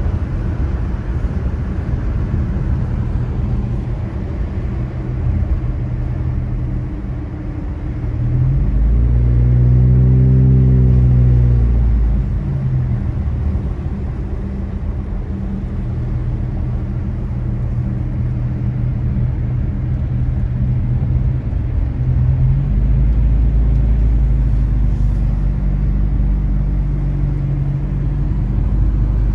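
Car being driven, with steady engine and tyre rumble. About nine seconds in, the engine note climbs and then falls back over a few seconds. The low rumble grows louder for the last few seconds.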